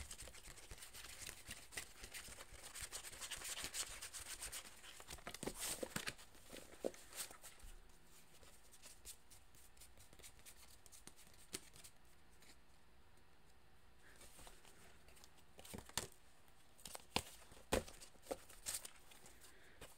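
A deck of tarot cards shuffled by hand: a dense run of quick card rustles for the first seven or so seconds, then quieter, with a handful of single sharp card clicks in the last few seconds.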